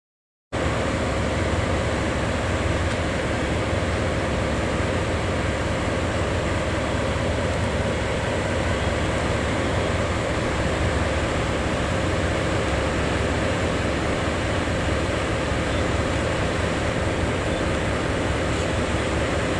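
DE10 diesel-hydraulic locomotive's V12 diesel engine idling, a steady drone with a deep rumble and a constant mid-pitched hum. It cuts in abruptly about half a second in and holds unchanged.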